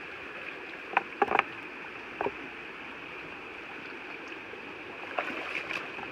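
A shallow stream running steadily over rocks, with a few short sharp clicks and knocks about a second in, at about two seconds, and again near the end.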